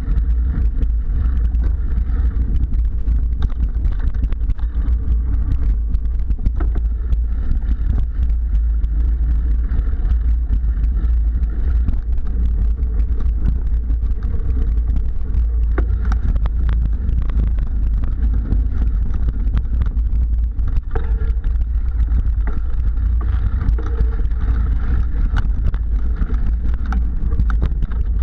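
Mountain bike rolling over dirt singletrack, heard through a handlebar-mounted camera: a loud, steady low rumble of wind and tyre noise, with frequent small clicks and rattles as the bike goes over bumps.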